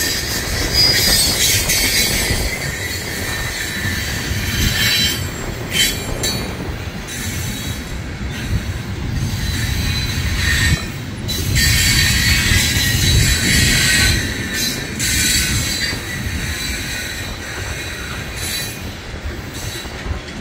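Freight train of tank cars rolling past, wheels on the rails giving a steady low rumble, with high-pitched wheel squeal that swells and fades, loudest a little past the middle.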